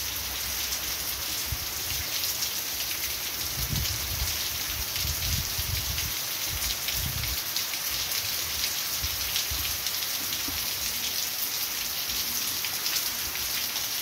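Heavy tropical downpour: a steady, dense hiss of rain splashing onto a water-covered street and the roof.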